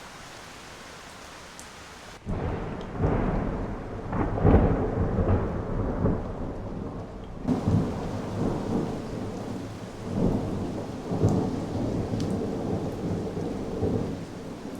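Thunderstorm: steady rain hiss, then about two seconds in a long rolling thunder rumble with several loud peaks, the strongest a little after four seconds, before it settles back to rain near the end.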